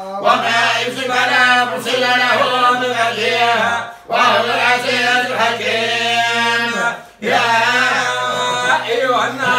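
Men chanting a melodic religious chant with long, wavering held notes, pausing briefly for breath about four and seven seconds in.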